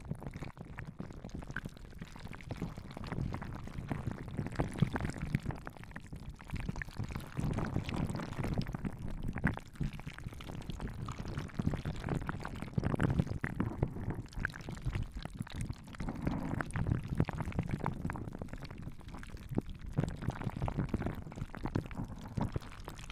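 Close-up ASMR hand sounds: palms and fingers moving and rubbing right at a handheld stereo recorder's microphones, giving a continuous run of soft, irregular crackles.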